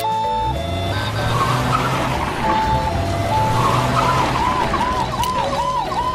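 Cartoon-style vehicle sound effect: a car engine running with a rushing noise. From about four seconds in, a rise-and-fall siren-like tone repeats about twice a second, with a few held music notes underneath.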